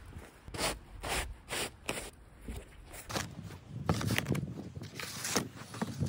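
Plastic snow scraper pushing and scraping packed snow off a car: a quick run of short strokes, about two a second, then longer, heavier scrapes in the second half.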